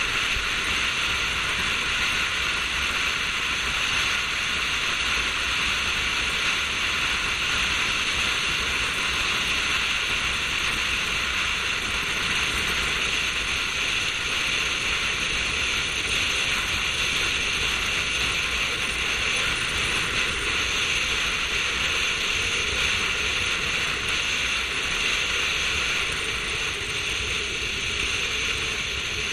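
Steady rush of wind and road noise at a camera mounted on the outside of a car driving at speed, easing slightly near the end.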